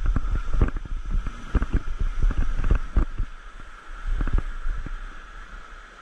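Rushing white water of a rocky river, overlaid by irregular low knocks and rumble from wind buffeting and handling on an action camera's microphone; the knocks come thick and fast for the first few seconds, then thin out.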